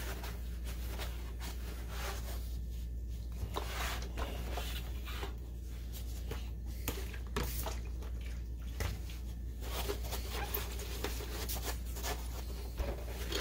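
Paper towel wiping over a projector's plastic case: a long run of short rubbing swipes, over a steady low hum.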